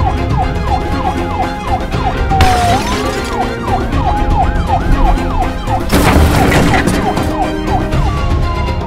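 Police siren in a fast yelp, wailing up and down about three times a second over background music, with a long falling tone at the start and again near the end. A short hiss comes about two and a half seconds in, and a louder burst of noise lasting about a second comes about six seconds in.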